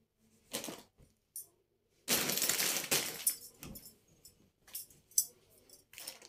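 Bedding rustling as a comforter and pillows are swept and shaken into place: a few short swishes, then a longer, louder rush of fabric about two seconds in, followed by several brief rustles.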